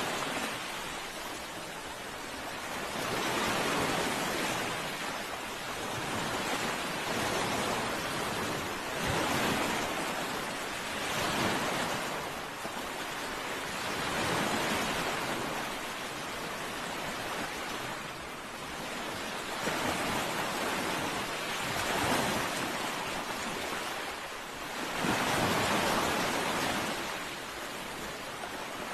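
Ocean surf: a continuous hiss of waves washing in, swelling and ebbing every few seconds.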